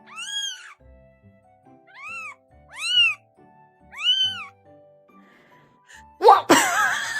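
A cat meowing four times, short calls that rise and fall in pitch, over background music. Near the end comes a loud, sudden, noisy sound.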